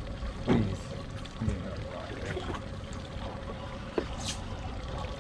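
Water lapping and trickling against the hull of a small fishing boat, with a steady hum underneath and a sharp click about four seconds in.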